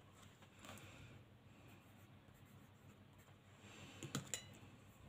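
Faint scratching of a pen writing on paper, with a few soft clicks about four seconds in.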